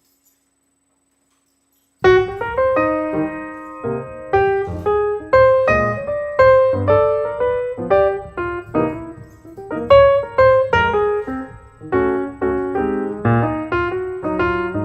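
Silence, then about two seconds in, piano music begins: a melody of single struck notes, about two or three a second, each ringing and fading.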